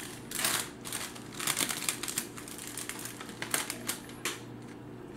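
Cardstock stickers and their sheet being handled and peeled apart by hand: irregular light clicks and short papery rustles, busiest in the first four seconds.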